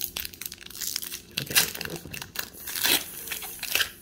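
Foil booster pack wrapper crinkling and rustling in the hands, in an irregular run of short crackles.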